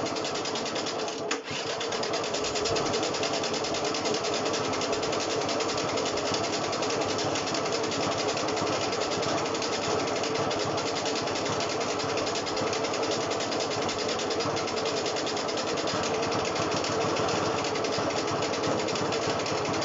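Electric starter motor of a Honda SH50 two-stroke scooter cranking the engine in a steady, fast whir, briefly cut about a second and a half in and then resumed; the engine turns over but does not catch, having trouble getting fuel to the carburettor.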